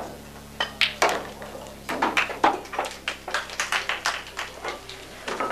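A pool shot: the cue striking the cue ball and balls clacking together just under a second in, followed by an irregular string of sharp clicks and knocks for several seconds.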